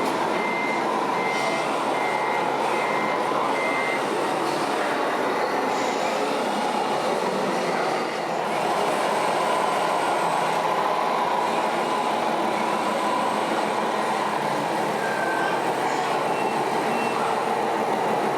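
Reversing beeper of a remote-control scale truck, one steady high tone repeating about every half second and stopping about four seconds in. Under it runs a constant mechanical din of model vehicles.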